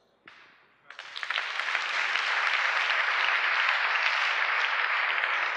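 Audience applauding: clapping starts about a second in and quickly builds to steady applause.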